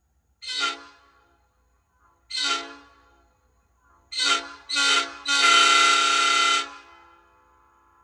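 A Nathan AirChime five-chime train horn sounding a steady chord in four short honks, the last two in quick succession, then a longer blast of about a second and a half. Each honk trails off in an echo.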